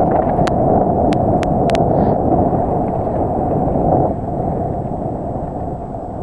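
Wind rushing on the microphone together with mountain bike tyres rolling over a dirt trail, with a few sharp clicks about half a second to two seconds in. The rush eases a little about four seconds in as the bike slows.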